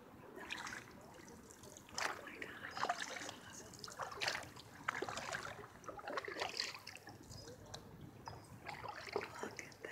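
Canoe paddle strokes: the blade dipping into and pulling through the water, with drips and small splashes at irregular intervals.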